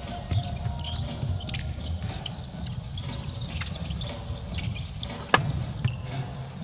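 Basketball game sound: a ball bouncing on the court and scattered short knocks over a steady low crowd rumble, with one sharp, loud knock about five seconds in.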